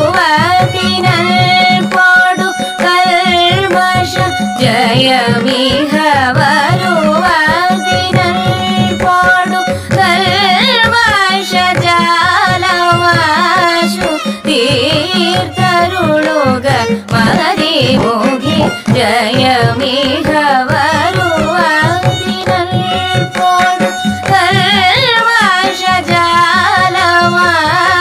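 Carnatic music in raga Hamsanandi: a sung melody that sways and slides through dense ornaments, over a steady drone and a hand-drum beat.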